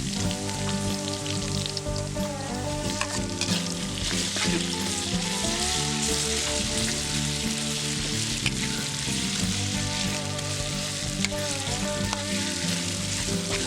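Food sizzling and frying in a hot pan, with a few short clicks, over background music of held, steady notes.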